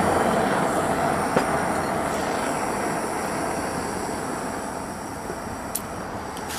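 Two propane torches firing into a small furnace, a steady rushing sound that gradually dies down. A light click comes about a second and a half in.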